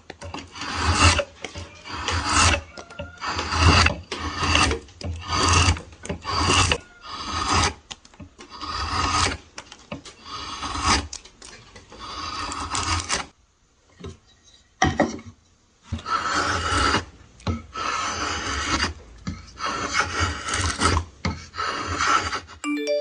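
A hand tool worked across wood in repeated scraping strokes, about one stroke a second, with a short pause a little past the middle.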